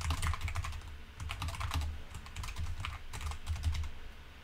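Typing on a computer keyboard: irregular quick runs of keystrokes that stop shortly before the end.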